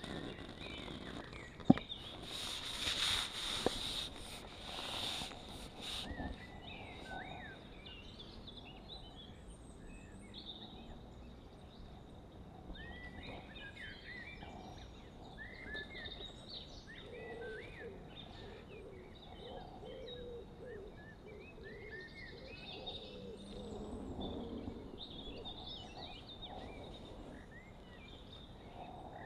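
Small songbirds chirping and twittering on and off over a faint outdoor hiss. A sharp click comes about two seconds in, followed by a few seconds of rustling noise.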